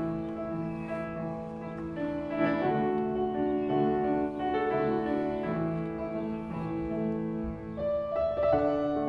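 Slow piano music: held notes and chords that change about once a second.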